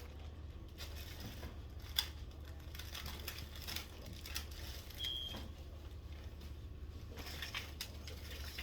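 Light handling and rustling over a low steady hum, with a sharp click about two seconds in and a short high electronic beep about five seconds in.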